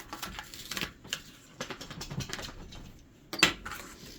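Light clicks, taps and rustles of small items being handled on a work surface, with one sharper knock about three and a half seconds in.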